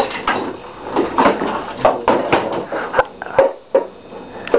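A string of sharp, irregular knocks and thuds, about six in a few seconds, with softer rustling between them.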